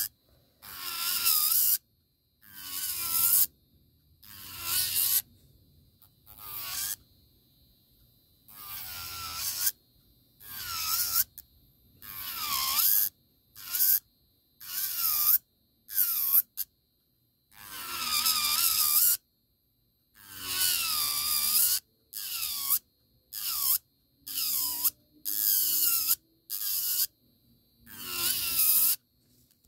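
Electric nail file (e-file) bit grinding down an acrylic nail in about twenty short passes. Each pass is a grinding buzz lasting around a second that grows louder, with silence between. The light, separate passes take the lifted acrylic off a layer at a time without gouging a groove.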